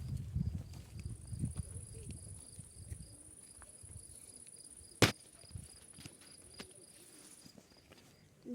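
Insects calling: a high chirp repeating about four times a second, with a higher, steady buzz over it from about a second in until near the end. A low rumbling noise in the first few seconds and one sharp click about five seconds in.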